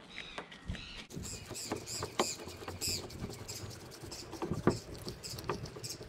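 A No. 2 Phillips screwdriver turning out the screw that holds the door handle carrier mechanism in a BMW E53 X5 door: small metal clicks and rubs, with a sharper knock about two-thirds through. A quick run of high squeaky chirps sounds between about one and three seconds in.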